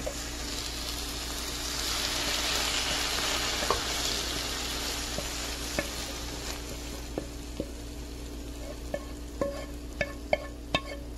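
Oil-fried onions and celery sizzling as they are scraped from a hot pan into a simmering pot of stew, the hiss strongest in the first half. Later a spoon knocks and scrapes against the pan in a string of sharp clicks that come faster near the end.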